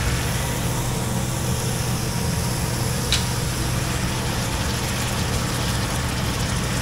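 Steady machinery hum with an even hiss aboard a ship's galley, from the ship's engines and ventilation, over a pan of seafood and vegetables frying; a single short clink about three seconds in.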